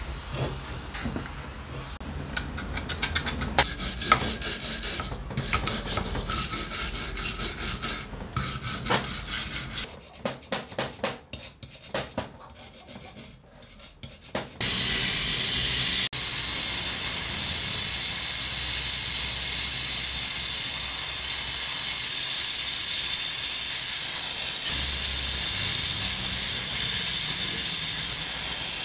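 A hand file rubbing back and forth in repeated strokes against the rusty metal housing of an old Makita groove cutter. About 15 seconds in, a gas welding torch takes over with a loud, steady hiss as it welds the broken gear cover.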